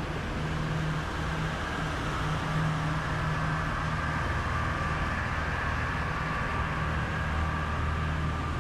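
Outboard motors on a dive boat running steadily at cruising speed, a low even drone over the rush of the wake and passing water.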